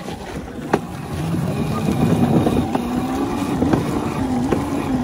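Pit bike engine pulling away: its pitch rises over about a second, then holds steady with small dips and rises in the throttle.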